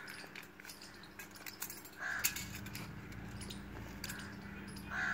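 A crow cawing, a short harsh call about two seconds in and another near the end, over scattered light clicks and a faint steady low hum.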